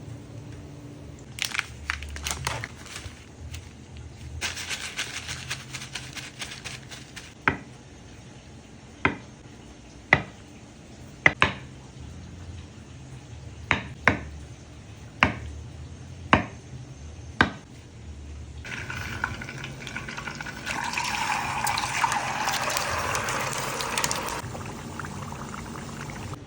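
Single sharp knife strokes on a cutting board, about one a second, then several seconds of liquid being poured.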